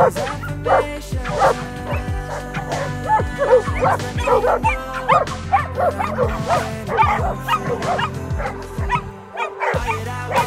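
A pack of dogs barking excitedly in quick, overlapping barks, over background music with held notes and a bass line.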